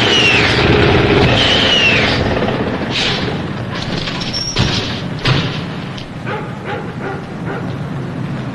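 Truck engine running as the truck pulls up and then dying away, with two falling squeals in the first two seconds and two thumps about halfway through.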